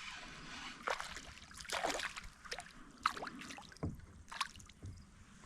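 Scattered small water splashes and drips with a few light knocks, coming irregularly, at a kayak's side as a small bass is brought in.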